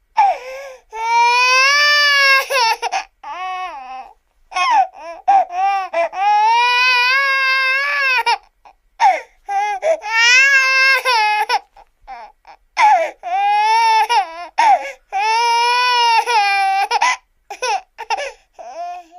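Cartoon crying sound effect: a high-pitched, childlike voice bawling in long wavering wails, broken by short hiccuping sobs and brief gasps between cries.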